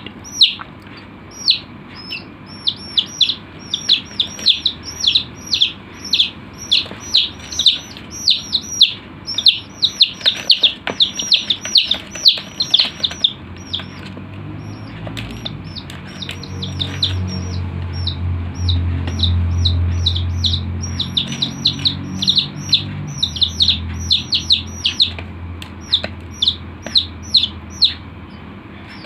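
Many chicks peeping: a rapid run of short, high, falling chirps, several a second, densest in the first half and thinning out later. A low hum swells up about halfway through and fades again.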